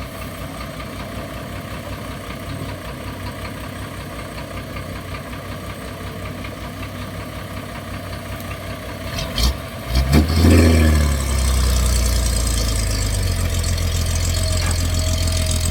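Six-wheel dump truck's diesel engine idling with an even low throb, then a few clicks and a clunk about nine to ten seconds in. The engine then revs up with a brief rising pitch and keeps working hard as the loaded truck pulls out of the laterite pit.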